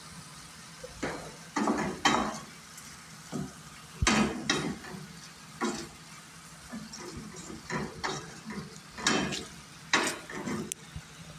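A utensil stirring and scraping in a pan in irregular strokes, over a faint steady sizzle of food frying.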